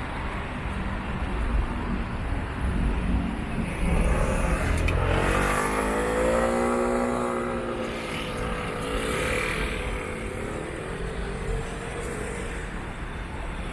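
A motor vehicle drives past close by about halfway through, its engine note rising and then falling in pitch as it goes by, over a steady low rumble of street traffic.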